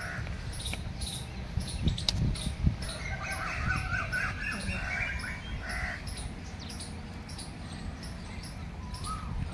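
Crows cawing, a run of calls in the middle and a single call near the end, over a steady low rumble. A few sharp handling clicks about two seconds in, and a faint high ticking repeats about twice a second.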